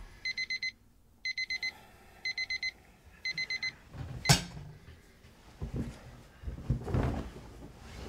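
Electronic alarm clock beeping in bursts of about five quick high beeps, one burst a second, four times. The beeping stops, then comes a single sharp knock and the rustle of bedclothes as someone moves in bed.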